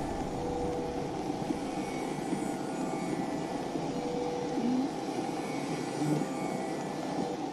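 Steady low rumbling noise with faint humming tones, unchanging throughout.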